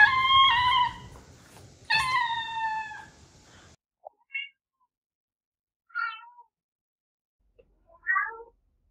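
Domestic cats meowing: two long meows about two seconds apart, each sliding slightly down in pitch, then three short meows spaced a couple of seconds apart.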